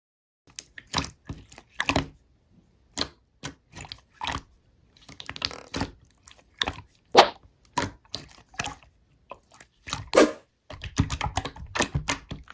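Slime being pressed and worked by hand, giving irregular sticky pops and clicks, with a denser run of crackling near the end.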